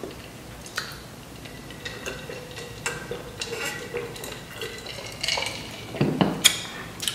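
Drinking pickle juice from a glass pickle jar, with small clinks and wet swallowing sounds. Near the end the glass jar is set down on the table with a couple of knocks.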